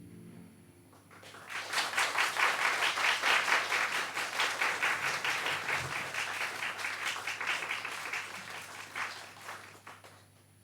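The last notes of a solo harp fade out, then an audience claps. The applause starts about a second in, holds for several seconds, then thins to a few scattered claps and stops near the end.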